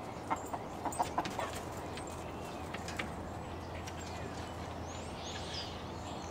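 Light Brahma hens making short, abrupt clucking sounds: a quick run of them in the first second and a half and one more about three seconds in. One of the hens has a cough.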